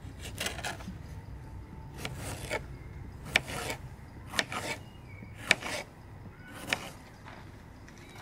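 Kitchen knife slicing a tomato on a cutting board: a sharp tap of the blade on the board with each cut, about a dozen taps coming mostly in pairs roughly a second apart.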